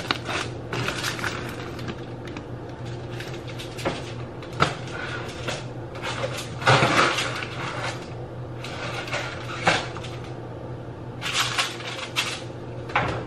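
Irregular knocks, clatters and crinkling plastic bags as things are handled and packed in a box, over a steady low hum.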